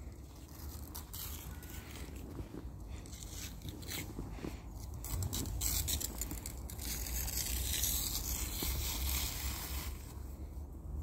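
Snow crunching and scraping in a run of short strokes, getting louder and busier about halfway through, over a low steady rumble.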